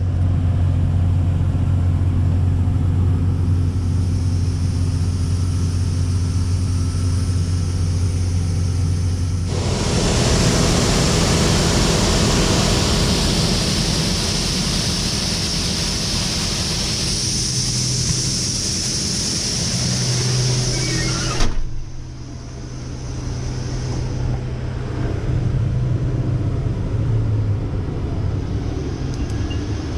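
Farm machinery's diesel engine running steadily. About ten seconds in the sound changes abruptly to a louder, hissier stretch of machine noise, then switches back to a steadier engine hum about twenty seconds in.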